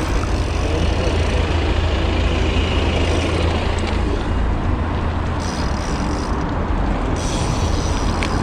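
City street traffic and wind rushing over the camera microphone of a moving bicycle: a steady noise with a heavy low rumble.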